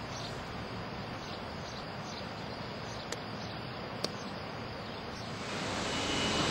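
Steady distant rushing of a Glacier Express train running along the valley, with faint insect chirps repeating every fraction of a second and two sharp clicks a little past three and four seconds in. Near the end a much louder, fuller rushing swells up.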